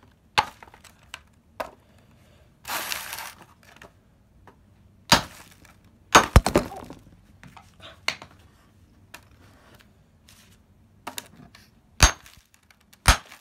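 Hammer blows on a geode in a molded pulp tray: separate sharp knocks at irregular intervals, the loudest about five seconds in, a quick double strike about a second later, and more near the end, the last of which cracks the geode open. A short rustle of paper or pulp about three seconds in.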